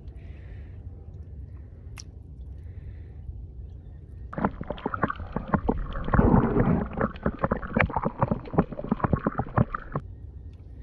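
Water sloshing and gurgling with many small splashes as a mulloway (jewfish) is held by the tail in the shallows to revive it for release, starting about four seconds in and cutting off suddenly near the end. Before that, only a low steady rumble.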